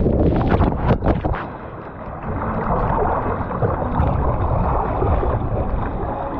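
Water rushing and spraying over a rider and camera as they shoot out of a ProSlide trapdoor water slide into the runout, with sharp splashes for about the first second and a half. Then a steadier, duller wash of water as the rider slides along the shallow runout trough.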